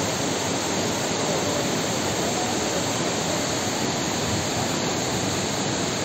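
Mountain stream rushing down a rocky cascade: a steady, unbroken rush of white water.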